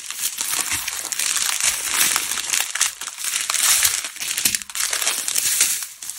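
Strips of small plastic bags filled with diamond-painting resin drills crinkling and crackling continuously as they are handled and pulled out of the kit.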